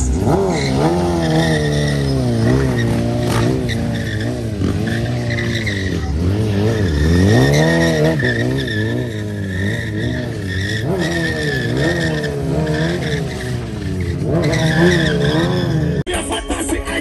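Kawasaki sport motorcycle doing a burnout: the engine is held high and revved up and down over and over while the spinning rear tyre skids and squeals on the asphalt. The engine sound breaks off abruptly near the end.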